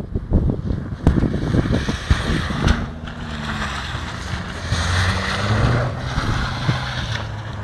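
Car engine revving, its pitch rising and falling from about three seconds in, as a car is driven and slid around an icy lot. Wind buffets the microphone, roughest in the first few seconds.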